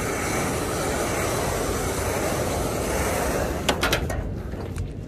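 Steady rushing of wind on the microphone. About three and a half seconds in come a few quick sharp knocks of metal, after which the rushing drops away.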